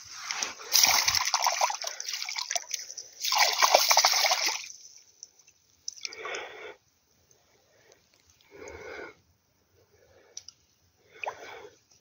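A carp splashing in shallow marsh water as it is released from the hand: two loud bursts of splashing in the first five seconds, then only a few faint short sounds.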